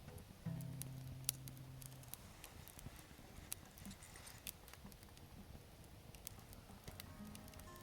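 Wood campfire crackling with scattered sharp pops. About half a second in, a low guitar note rings for about a second and a half and fades.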